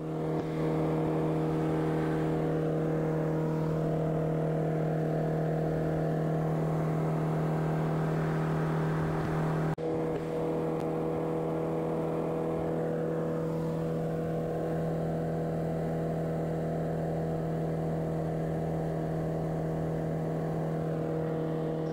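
Van's RV-7A light aircraft's piston engine and propeller running steadily in flight, heard from inside the cockpit as a constant, even-pitched drone. The sound breaks off briefly about ten seconds in.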